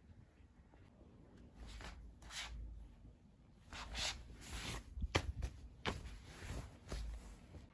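Faint rustling and shuffling of someone moving about in fuzzy slippers on a hard wooden floor, a series of soft swishes with a couple of sharp clicks about five and six seconds in.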